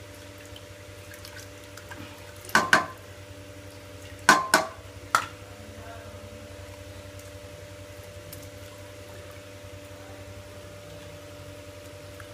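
Four sharp, ringing clanks of a small bowl knocking against a stainless-steel cooking pot between about two and a half and five seconds in, while masala is rinsed off into the water. Faint sloshing of liquid in the pot over a steady low hum.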